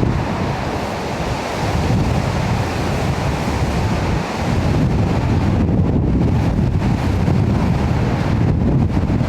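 Strong storm wind buffeting the microphone over the rush of rough sea surf, a steady heavy roar with no let-up.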